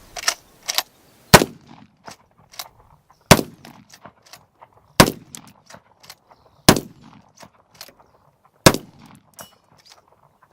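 Adler A-110 12-gauge lever-action shotgun firing five shots about one and a half to two seconds apart, emptying its five-round magazine. Smaller metallic clacks come between the shots.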